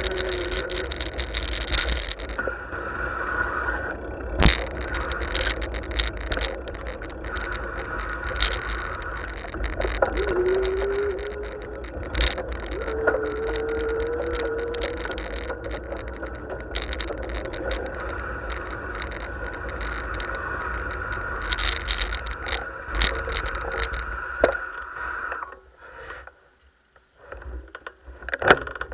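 Riding noise picked up by a bicycle-mounted camera on a town street: steady wind and tyre rumble with frequent knocks and rattles from bumps in the road, and motor traffic around. The noise drops away briefly near the end.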